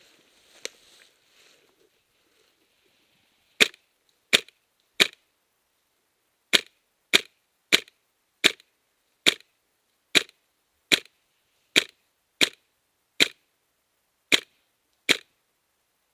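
Airsoft rifle firing single shots: about fifteen sharp cracks, each a little under a second apart, starting a few seconds in.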